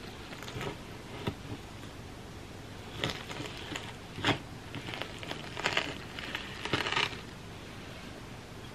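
Large knife cutting through a frozen chocolate-coated candy bar: the hard chocolate shell cracks and the crispy puffed-rice and peanut filling crunches in a string of short snaps and crackles, most of them between about three and seven seconds in.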